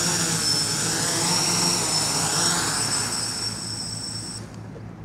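Brushless motors and propellers of a DIY Baby Widow Maker quadcopter, whining steadily in a low hover as it comes down to land. The whine fades and then cuts off about four seconds in as the motors stop on touchdown.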